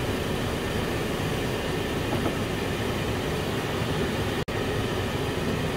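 Chicken pieces simmering in their own juices in a covered frying pan on medium heat: a steady hiss and rumble, broken by a split-second dropout about four and a half seconds in.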